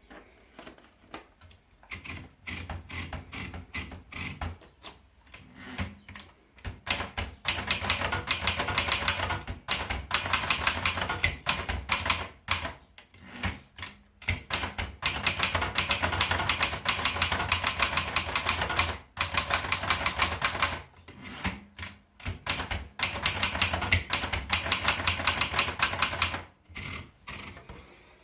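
Hermes Baby portable manual typewriter being typed on: fast runs of sharp key and typebar strikes, broken by a few short pauses. The clicking is lighter and sparser for the first several seconds.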